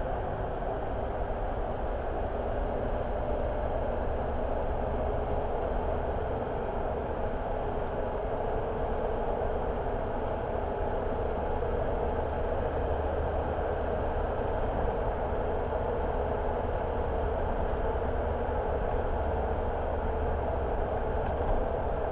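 A car driving along a road: steady engine and tyre noise.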